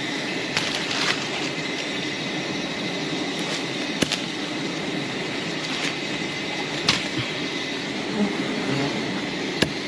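Steady massed buzzing of a swarm of wild honey bees around their hive, with a few short sharp clicks or snaps scattered through it.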